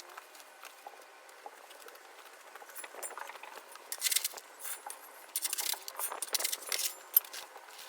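Crushed stone crunching and clinking in a run of short scrapes, starting about three seconds in and growing louder.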